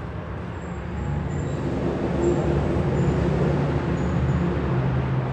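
A vehicle engine running steadily with a low rumble, growing louder a second or two in and then holding.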